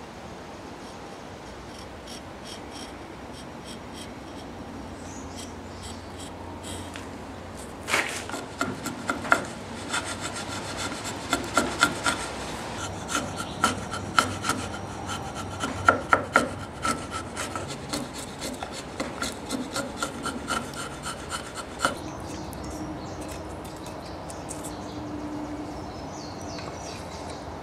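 Steel chisel scraping and paring wood, hollowing the blade recess in one half of a wooden knife sheath. Quiet scraping at first, then from about eight seconds in a busy run of quick rasping strokes and sharp clicks, easing off again a few seconds before the end.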